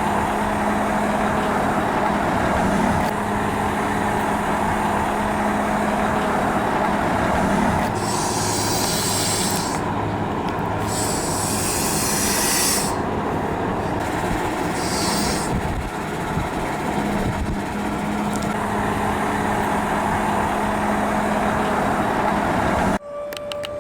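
Volvo L180H wheel loader's diesel engine running steadily, with several bursts of hissing partway through. The sound cuts off abruptly near the end.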